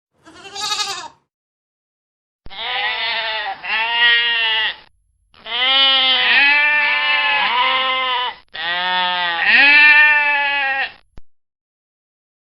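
Goat bleating: a short bleat, then several long, wavering bleats one after another.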